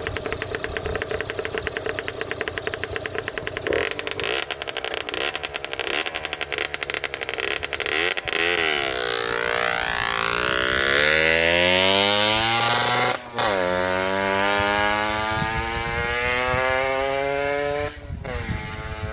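1993 Aprilia RS50's 50cc two-stroke single idling with a fast buzz, then given a few short blips of throttle before pulling away hard. The engine note climbs through the gears, with a brief break at a gear change about thirteen seconds in and another near the end as it moves away.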